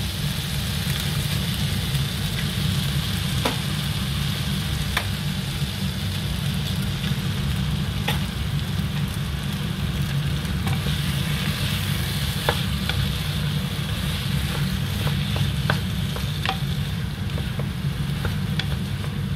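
Diced pumpkin and egg frying in a nonstick pan, sizzling steadily while a wooden spatula stirs and scrapes, with scattered light taps of the spatula against the pan. A steady low hum runs underneath.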